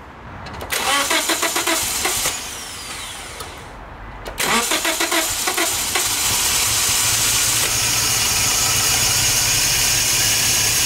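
Scion xB's 1NZ-FE 1.5-litre four-cylinder engine being started with freshly replaced fuel injectors. It cranks about a second in and stops, then on a second try about four seconds in it catches and settles into a steady idle that sounds to the owner like it is running properly.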